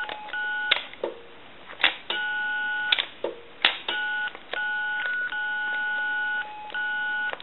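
AT&T 210 Trimline keypad sending touch-tones as the 9 key is pressed about six times, each press with a plastic key click. The tones are the two-note pair of the 9 key. Some are short and two hang on for about a second, the sign of a sticking 9 key.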